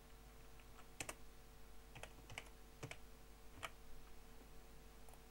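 Computer keyboard being typed on: several faint, irregular keystroke clicks spread over a few seconds, over a faint steady hum.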